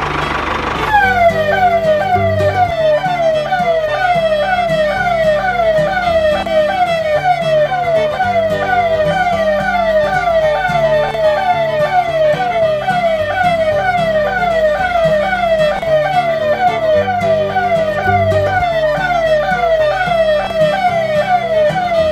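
Electronic siren: a fast, evenly repeating falling wail that starts about a second in, over background music with a bass line. Before it, a small motor runs briefly.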